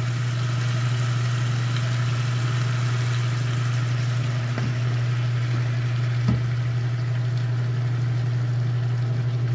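A steady low hum, like a running motor, over a soft even hiss, with a single light knock about six seconds in.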